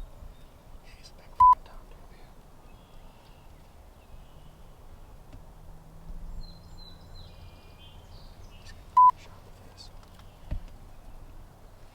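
Two short electronic beeps at one steady pitch, about seven and a half seconds apart, over a steady low rumble of wind, with faint bird chirps and a soft knock near the end.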